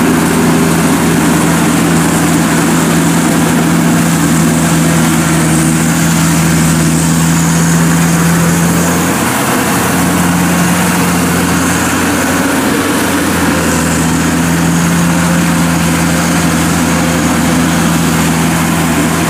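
Zoomlion EH100 rice combine harvester running steadily under load as it cuts and threshes rice, a loud engine hum with a mechanical clatter over it. The engine tone wavers briefly twice around the middle.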